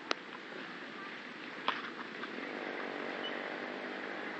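Outdoor background noise with a distant motor vehicle engine, a small motorcycle-like hum that comes up faintly in the second half. Two short sharp clicks sound, one just after the start and one under two seconds in.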